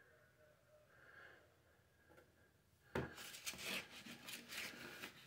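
A wooden stir stick scraping and scooping two-part tub repair compound on a paper plate: a sudden knock about three seconds in, then a quick run of scratchy scrapes. Before that, only faint breathing.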